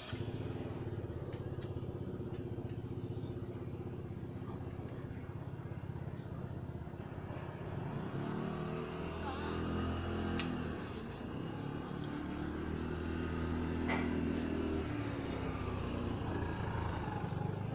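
A motor vehicle engine running steadily, its pitch sweeping up and then down around eight seconds in and again around thirteen seconds in. A sharp click about ten seconds in.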